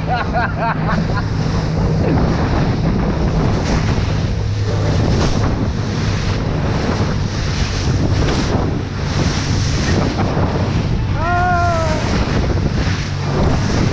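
Amur motorboat running fast over choppy river water: a steady motor drone under the rush of hull, spray and waves. Heavy wind noise on the microphone.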